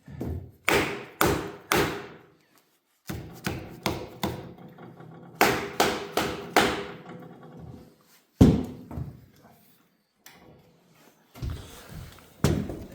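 A series of sharp hammer blows on metal, some ringing briefly, as the cylinder head of a Chevy 350 V8 is knocked loose; the hardest blow falls a little past the middle.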